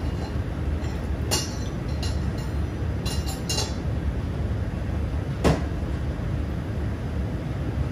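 Glass bottles being handled over a steel pan, with a few light clinks and one sharper knock about five and a half seconds in, over a steady low kitchen rumble.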